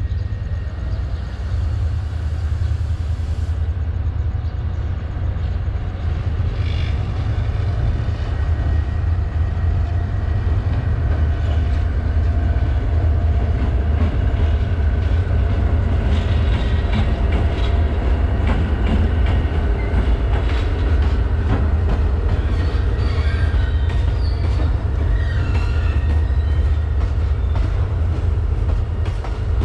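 Diesel locomotive hauling a passenger train out of the station and past at close range, its engine giving a deep steady rumble that builds over the first several seconds. Wheels clatter on the rails, and thin high squeals come and go as the coaches roll by.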